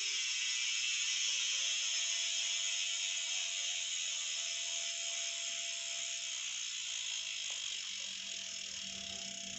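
Rear freehub of a Hotop Explorer folding bike freewheeling as the wheel spins on a stand. The pawls give a fast, continuous ratchet buzz that gradually gets quieter as the wheel slows.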